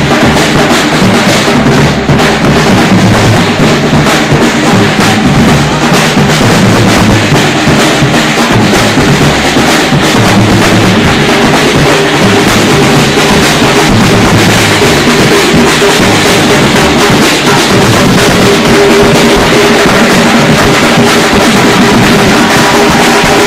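A batucada drum group playing: large bass drums and a snare drum beaten with sticks in a dense, continuous groove, loud and unbroken throughout.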